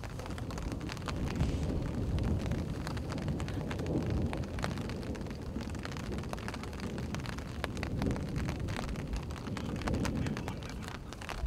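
Outdoor ambience: a steady low rumble with many faint, scattered ticks throughout.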